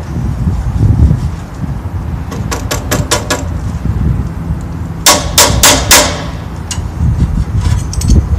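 Sharp metal-on-metal taps and clicks from a wrench working the table-rail bolts of a Craftsman radial arm saw while the rail is adjusted: a quick run of about five a little over two seconds in, then four loud strikes about five seconds in.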